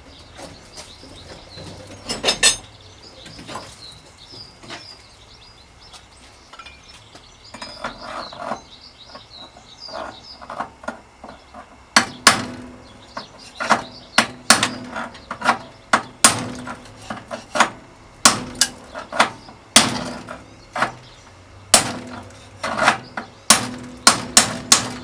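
A big hammer striking to knock an old headset cup out of a bicycle frame's head tube: sharp metallic blows, a couple early on, then a steady run of strikes from about halfway that come faster near the end, each with a brief ring.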